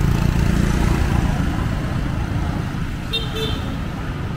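Road traffic heard from a moving vehicle: a steady low rumble of engines and road noise, with a short horn beep about three seconds in.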